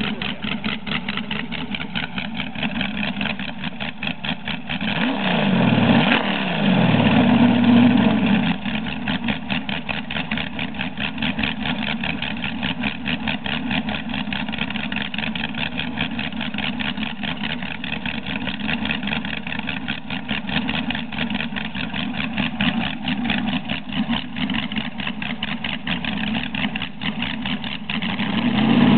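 Balanced and blueprinted LS7 V8 with forged pistons and a performance cam, running on an engine stand through short open exhaust pipes. It idles with a rapid steady pulse, is revved up for a few seconds about five seconds in, and starts to rev again near the end.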